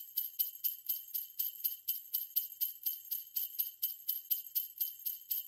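Sleigh bells jingling in a steady, even rhythm of about four to five shakes a second, with a bright, thin ring and no low tones.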